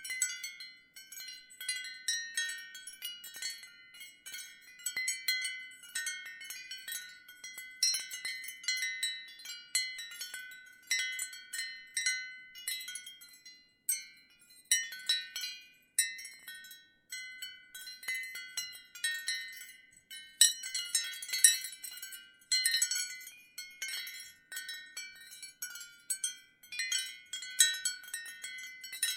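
Ceramic wind chimes clinking irregularly, high-pitched strikes ringing briefly and overlapping. A busier flurry of strikes comes about two-thirds of the way through.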